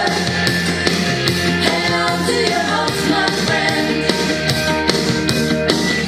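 Background rock music with singing and a steady drum beat.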